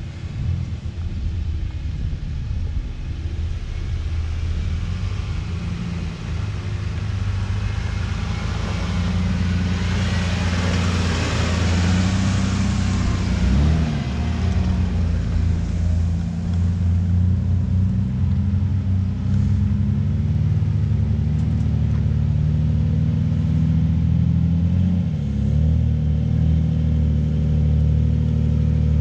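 Jeep Wrangler engine running at low revs as it crawls a steep dirt trail, steady with small rises in pitch. A broad rushing noise swells and fades about ten to fourteen seconds in.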